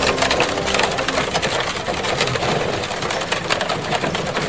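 Steady, rapid rattling and crunching of a horse-drawn cart's wheels and the horse's hooves on a gravel track.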